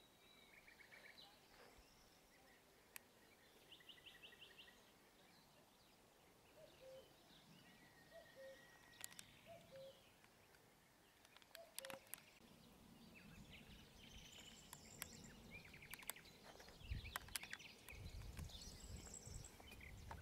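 Faint birds calling and singing, with short chirps, trills and a repeated two-note call. Low rustling and a few soft thumps build up in the last several seconds.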